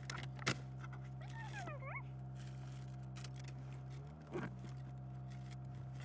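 Steady low hum of a car idling with the heater running to clear the windscreen, heard inside the cabin. Over it come a few light clicks near the start, a short wavering squeak about a second and a half in, and a soft thump a little after four seconds.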